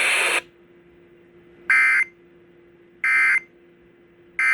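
Three short bursts of the Emergency Alert System end-of-message data signal (SAME code) closing a broadcast tornado warning, each a fraction of a second long and about a second and a half apart. A faint steady hum runs underneath.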